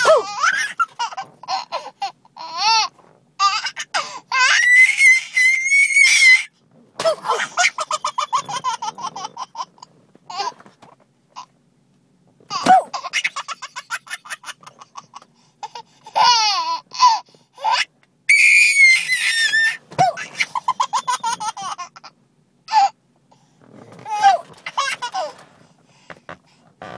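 A baby laughing in loud, shrill, half-screaming fits: bouts of rapid laugh pulses, a couple of long high squeals held on one pitch, and short pauses between bouts.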